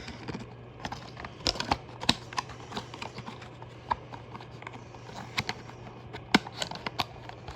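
Irregular light clicks and taps of small objects being handled, a few sharper than the rest, over a faint steady low hum.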